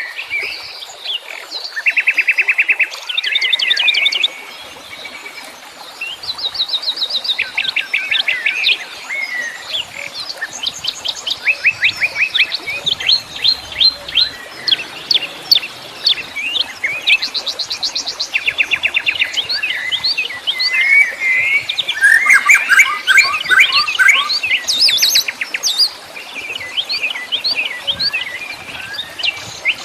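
Several wild songbirds chirping and trilling at once, in rapid runs of short chirps and fast trills that overlap with hardly a pause.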